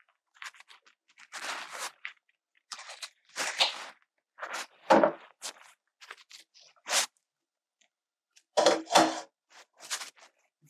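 Kitchen handling noises: a string of short, irregular scrapes, clatters and rustles as utensils and dishes are handled at the stove, loudest about halfway through and again near the end.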